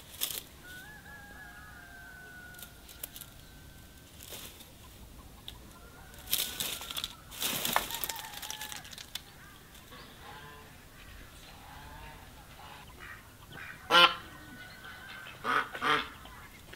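Dry broom straw rustling as a cat grabs at a bundle broom, then farmyard poultry calling: one loud, harsh call about two-thirds of the way through and two shorter calls near the end.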